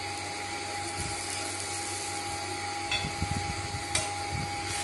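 Steady hiss of a dosa frying on an iron tawa, with a faint steady whine underneath, and a few light clicks and scrapes of a metal ladle on the pan about three and four seconds in as the dosa is folded.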